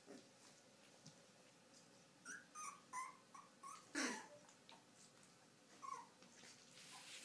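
Young Afghan hound puppies, about two and a half weeks old, giving faint short high squeaks and whimpers, several in quick succession a couple of seconds in and another near the end, with one louder sound about halfway through.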